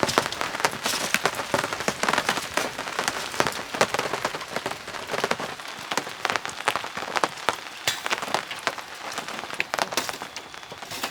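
Rain falling on a surface: a dense, irregular patter of drops.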